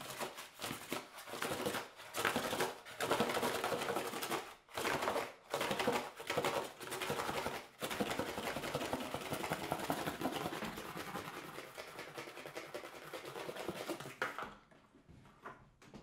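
Improvised percussion on small household objects: a dense mix of rattling, scraping and clicking, with short breaks about four and a half, five and a half and eight seconds in. From about eight seconds it becomes a steadier scraping noise, which cuts off about fourteen seconds in, leaving faint scattered clicks.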